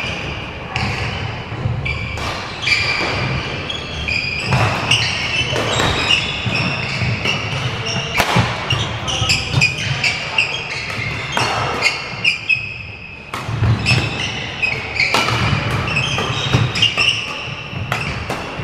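Badminton rally on a wooden court: rackets repeatedly striking the shuttlecock, with shoes squeaking and feet thudding on the floor, echoing in a large hall. There is a short lull about twelve seconds in before play picks up again.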